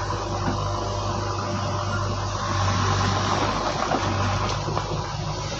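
Flash-flood torrent rushing: a steady, loud wash of water noise over a deep continuous rumble, with a few faint knocks in it.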